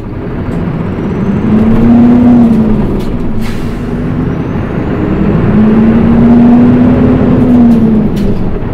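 Mitsubishi Fuso Aerostar city bus's diesel engine heard from inside the cabin, pulling away under load. The engine note climbs twice, dropping back in between as the manual gearbox is shifted up.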